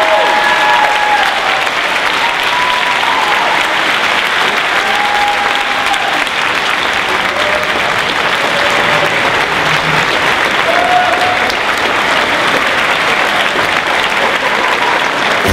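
Large theatre audience applauding steadily, with a few voices rising briefly above the clapping now and then.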